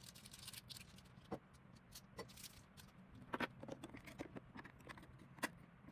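Faint, scattered small clicks and taps of handling a digital vacuum gauge and its small plastic and brass adapters.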